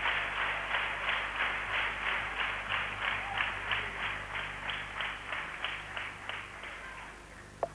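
Large arena crowd clapping in unison, a steady rhythm of about three claps a second that fades away toward the end. A single sharp tap sounds just before it closes.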